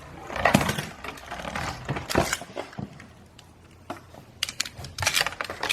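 Scattered clicks and knocks of plastic Beyblade Burst tops being handled, with a quick cluster of clicks near the end.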